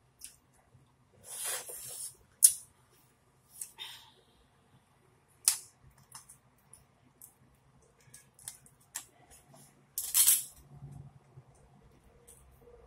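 Hard shell of a boiled lobster tail cracking as it is broken open by hand: a few separate sharp snaps, and two longer crackling stretches, one a second or so in and one near the end.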